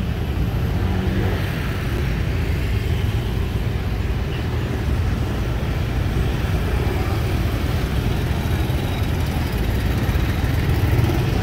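Street traffic: the steady engine noise of cars and motorbikes running by on a busy road.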